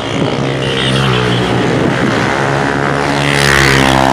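Road traffic: a motor vehicle's engine running with a steady hum, and a vehicle passing close that rises to its loudest about three and a half seconds in.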